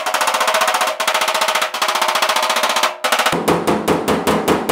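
Body hammer tapping lightly and very rapidly on the steel door skin of a 1967 Pontiac GTO, a dense run of sharp metallic taps knocking down high spots to flatten a dent. A little past three seconds in, the taps take on a deeper, fuller ring.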